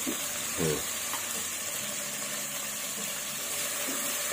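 Onions, green chillies and tomatoes sizzling steadily in hot oil in an aluminium pressure cooker, stirred with a wooden spatula.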